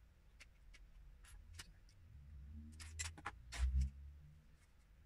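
LEGO bricks clicking as pieces are pressed onto a plastic build: a scatter of small sharp clicks, with a quicker run of clicks and a dull thump about three and a half seconds in.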